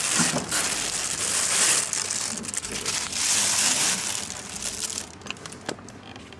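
Thin plastic crinkling and rustling loudly as it is handled, dying down after about four seconds, with a few soft clicks near the end.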